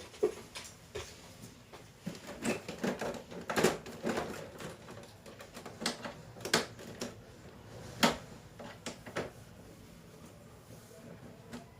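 Irregular sharp clicks and knocks of hard tools and parts being handled, a dozen or so scattered through, with the loudest about 3.5 and 8 seconds in.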